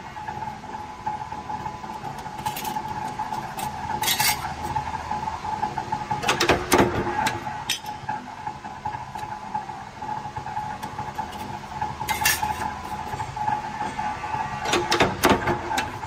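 A mechanical punch press running with a steady hum and whine, while steel sheet-metal blanks and bent angle connectors clink and clank against the steel die. Heavier metallic clanks come about six and a half seconds in and again near the end, as the bending die closes on a part.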